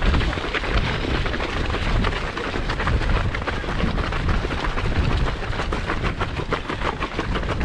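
Wind buffeting a GoPro's microphone with a heavy low rumble, over the quick patter of many runners' footsteps on the lane.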